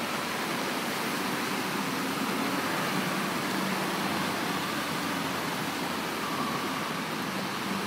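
Steady wash of heavy rain and running floodwater on a street, with cars driving through the deep water, tyres splashing and an engine hum passing in the middle.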